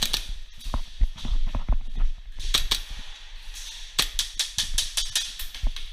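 Sharp cracks of airsoft Hi-Capa gas blowback pistols firing: a pair about two and a half seconds in, then a fast string of shots about four seconds in, over low thumps.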